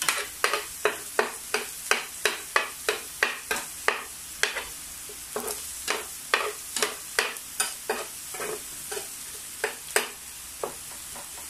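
Metal spoon scraping and knocking against a square nonstick pan as pork cubes and minced garlic are stirred, over a steady sizzle of the garlic browning in fat rendered from the pork. The scrapes come about two to three a second at first and grow sparser after a few seconds.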